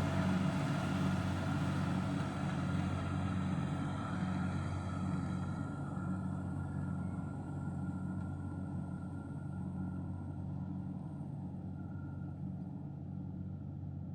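An engine running steadily at an even pitch. Its higher hiss fades gradually from about five seconds in, while the low drone stays level.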